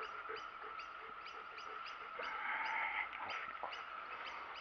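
A bird calling: short, high, falling chirps repeated about four times a second, over a steady faint background tone.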